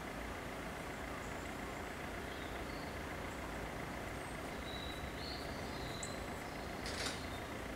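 Steady background rumble of road traffic, with a few short high bird chirps and one brief sharp click about seven seconds in.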